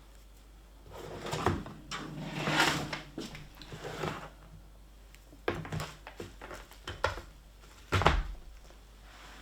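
Handling noises from work on an opened iMac as its screen panel is laid back on: a string of irregular knocks and clunks with some rustling, the sharpest knocks coming about five and a half, seven and eight seconds in.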